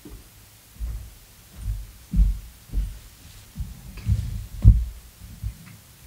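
About eight low, muffled thuds picked up by the lectern microphone as someone walks up to the lectern and handles things on it, the loudest about two and four-and-a-half seconds in, over a faint steady hum.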